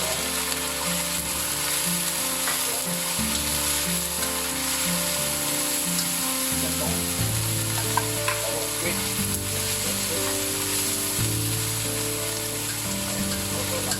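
Pork and garlic sizzling as they fry in hot pork lard, with a few light clicks of stirring. Soft background music with a low, stepping bass line plays underneath.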